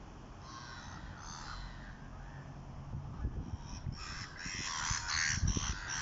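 Bird calls from waterbirds on a river: a few short calls about half a second in, then many in quick succession from about four seconds in, with a few low thumps near the end.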